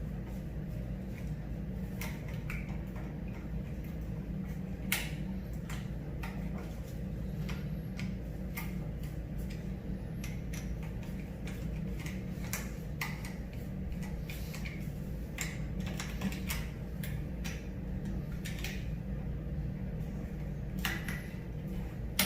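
Scattered light clicks and taps of hand tools and wire as the two wires are taken off an old wall light switch, over a steady low hum.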